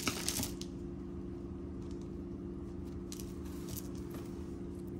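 A few faint clicks and light knocks of small jewelry pieces being handled, near the start and again about three to four seconds in, over a steady low hum.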